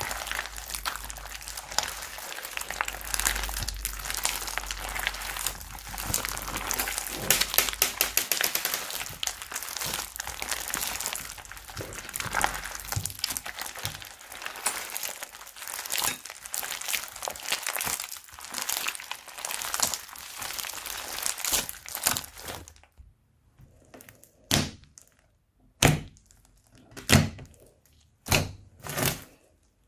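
Slime being worked by hand, crackling and crinkling densely for about twenty seconds. Near the end it gives way to separate soft thunks, roughly one a second.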